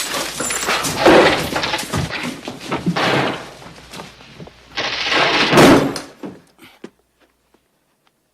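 Loud bangs, thumps and clattering that come in several waves and stop about six seconds in.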